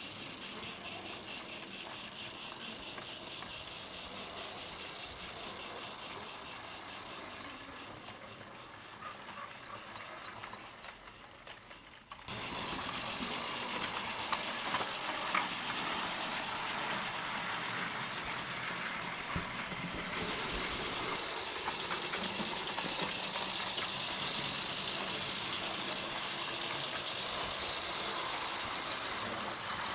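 Fleischmann 1308 model steam locomotive running along the track with its wagons, its electric motor and gearing running steadily and the wheels rolling on the rails. The sound fades a little, then about twelve seconds in comes back suddenly louder.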